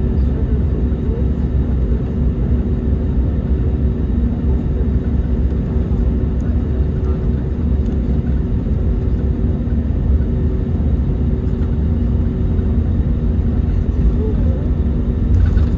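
Steady cabin noise aboard a Lufthansa Airbus A321 in motion: a constant deep rumble of engines and airflow with two steady hum tones running through it.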